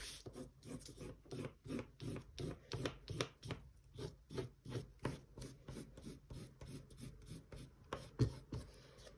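Oil pastel scraping across paper in quick back-and-forth strokes, about three or four a second, hatching stripes. One sharper tap near the end.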